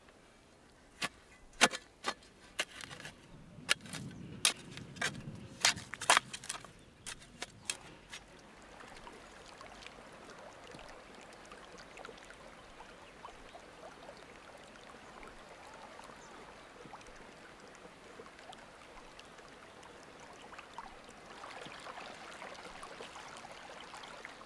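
A quick run of sharp knocks and clicks for several seconds, then a steady rushing noise like flowing water, a little louder near the end.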